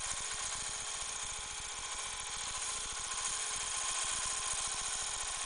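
Taig benchtop lathe running while a hand-fed cobalt parting tool cuts a groove into spinning aluminum stock: a steady whir with no chatter, the sound of a clean parting cut.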